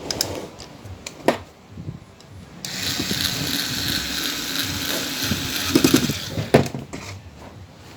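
A small power tool runs steadily for about three seconds, then a few sharp knocks follow.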